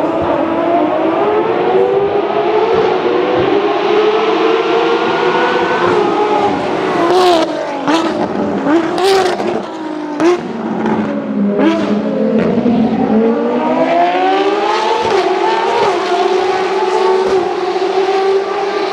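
A track-only hypercar engine at racing speed. It accelerates with rising revs, then drops revs in quick steps with blips and several sharp exhaust cracks as it downshifts for a corner. It then accelerates again and holds a steady high note near the end.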